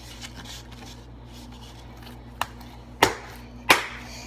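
Homemade fluffy slime being worked in the hands: faint sticky crackling, then three sharp pops, the last two loud, about two-thirds of a second apart.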